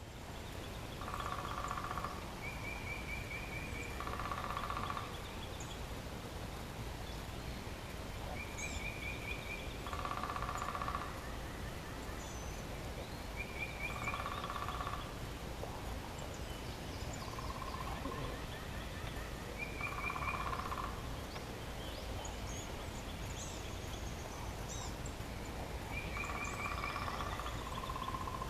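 A bird calling again and again, about every five to six seconds: a short high trill, then a lower note lasting about a second, over a steady low rumble.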